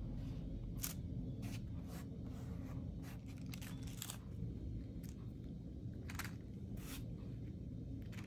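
Thin tissue-backed gold leaf being handled and pressed onto paper, giving short, scattered crinkles and rustles of paper, about eight in all, over a steady low hum.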